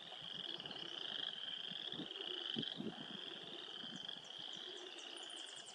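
A chorus of frogs trilling steadily in a high, even drone, with a faint fast ticking trill above it near the end.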